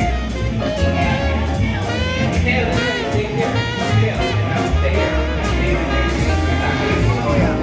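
Background music: an upbeat jazzy track with a steady bass and drum beat, horns and a voice.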